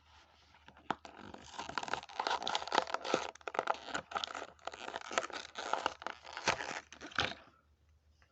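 Packaging of a die-cast model car being opened by hand: plastic and card crinkling, crackling and tearing in a dense, irregular run that starts about a second in and stops shortly before the end.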